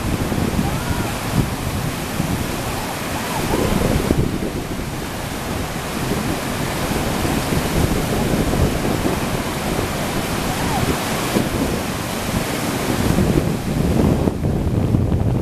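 Steady roar of a large whitewater rapid: river water churning and breaking over a big standing wave.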